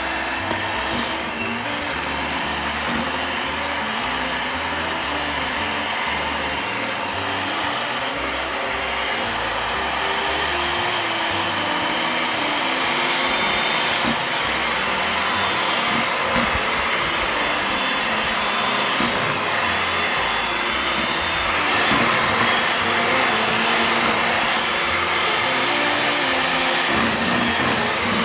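Kenwood electric hand mixer running steadily, its beaters creaming butter and sugar in a plastic bowl. The motor whir grows a little louder about halfway through.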